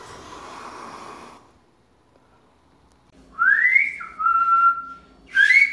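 A man whistling a bird imitation with his mouth: a note sliding up and back down, a held steady note, then a fast warbling trill starting near the end. A soft hiss is heard in the first second.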